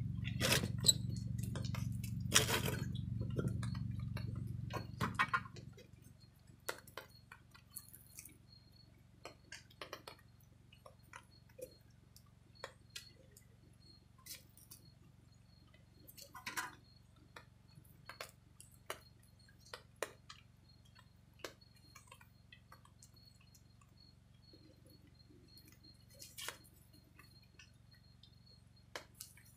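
Wood sawing stops about five seconds in. After that, a small log-cabin campfire crackles quietly with scattered snaps and clicks, some from sticks being laid on the fire.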